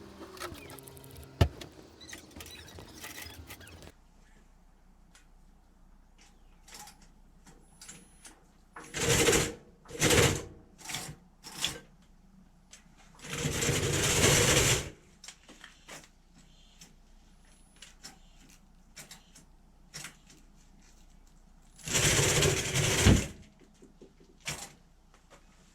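Homemade RC bulldozer's e-bike drive motors and tracks running in short bursts, the longest about a second and a half, with quiet gaps and small clicks and knocks between.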